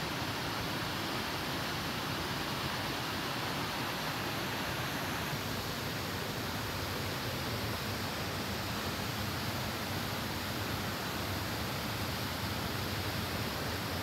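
Steady rushing of a wide waterfall, several streams of water falling into a plunge pool.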